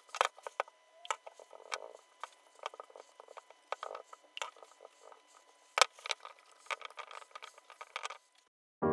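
Gloved hands wiping stain onto a small wooden shelf and shifting it about on plastic sheeting: irregular rustling and scratching with light wooden knocks, one sharper knock about six seconds in. Piano music comes in at the very end.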